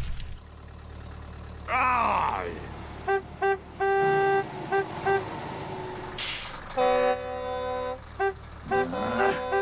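Old pickup truck's horn honking in a run of short toots and a few longer blasts, with a brief falling squeal about two seconds in.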